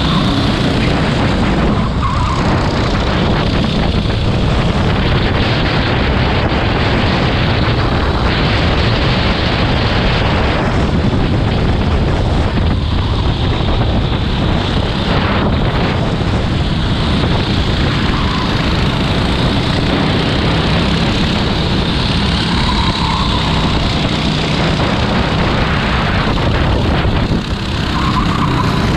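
Racing go-kart engine noise, loud and steady.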